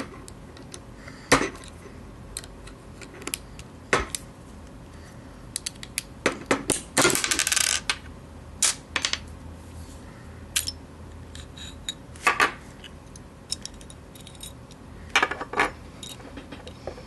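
Small metal parts of a Tanfoglio Witness 1911 CO2 air pistol clicking and clinking against each other and a hard surface as a pin is worked out of the frame to free the stiff hammer. There are scattered sharp taps, with a rapid run of rattling clicks about seven seconds in.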